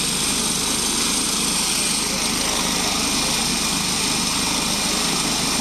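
Airbus helicopter running on the ground with its main rotor turning: steady turbine and rotor noise with a thin, high whine over it.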